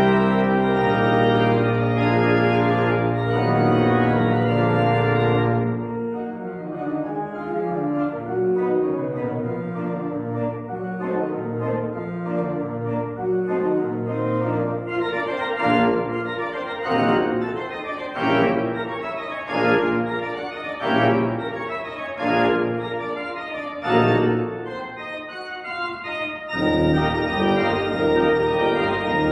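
Pipe organ playing: full sustained chords over a held deep pedal bass, which drops out about six seconds in, leaving lighter, detached chords with moving bass notes. Near the end the full sound with the deep bass comes back in.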